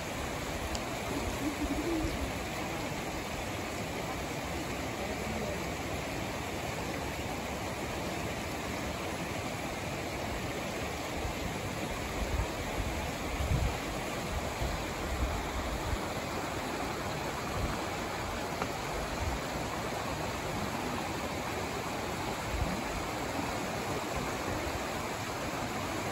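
Shallow mountain river, the Yokoyu, running over rocks with a steady rushing hiss of water. A few low thumps come through about halfway in.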